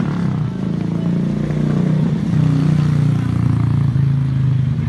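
A vehicle engine running steadily, louder from a little over two seconds in.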